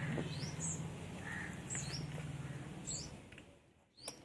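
Small birds chirping in the background: a few short, high calls that dip in pitch, about one a second, over a low steady hum that fades near the end.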